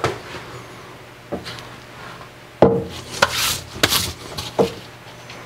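A Shars steel machine vise set down on a Haas CNC mill's steel T-slot table and shifted into place: a string of metal knocks, the loudest about two and a half seconds in, with a scraping slide of steel on steel about three seconds in.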